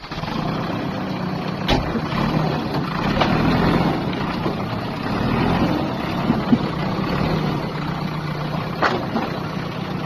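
Backhoe loader's diesel engine running steadily while working, with a few sharp knocks, one about two seconds in and another near the end.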